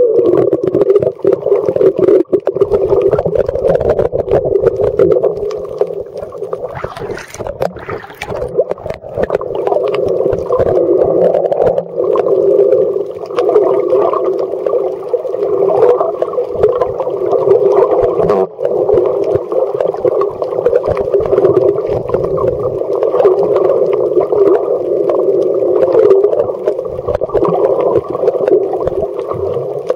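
Muffled underwater noise picked up by a camera in a waterproof housing: a steady, dense hum with fine crackling, and a brief burst of brighter crackle about seven seconds in.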